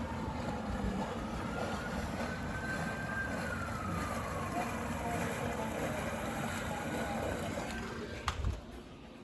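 An emergency vehicle siren wailing at a distance, its pitch rising and falling slowly over several seconds, over a steady wash of street noise. A sharp click comes near the end, and the sound then drops off.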